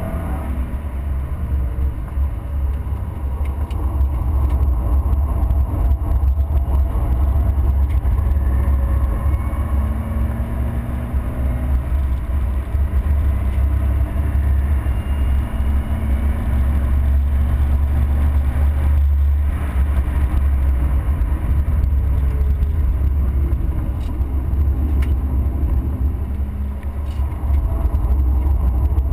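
A race car's engine and road noise at speed on a circuit, heard from inside the car as a heavy low rumble; the engine note climbs and falls with the gear changes and corners, dipping briefly about nineteen seconds in.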